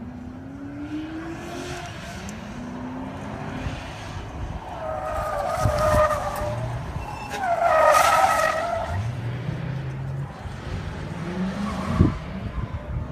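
Police patrol cars driven hard through a tight cone course: engines revving up, and tyres squealing in two loud bursts about five and eight seconds in, the second the louder. A short sharp knock near the end.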